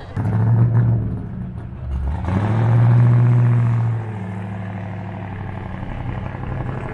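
Twin-turbo 427 LS V8 of a 1961 Buick Skylark accelerating on the street. A deep engine note rises in pitch about two seconds in and is loudest for about two seconds, then settles back to a steadier, quieter drone.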